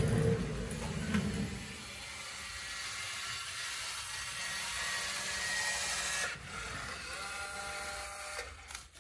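DeWalt cordless dual-cartridge caulking gun's motor running steadily as it drives the plungers, purging polyurea joint filler through the mixing tip into a bag. The motor changes about six seconds in, runs a little longer and stops shortly before the end. A low rumble at the start comes from the rolling stool's casters on the concrete floor.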